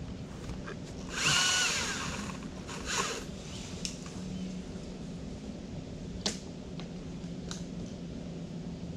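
A battery-powered chainsaw is revved briefly about a second in, its motor whine rising and then falling away, with a shorter burst a couple of seconds later. Scattered sharp clicks sit over a steady low hum.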